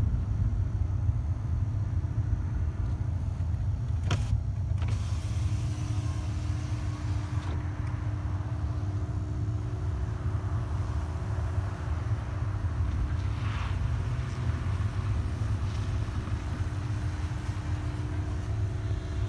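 Car running with a steady low rumble heard from inside the cabin, with two brief clicks about four seconds in.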